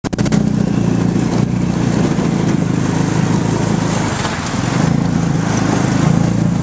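Small engine of an open motor vehicle running steadily at a constant pitch while it drives along, with wind rushing over the microphone.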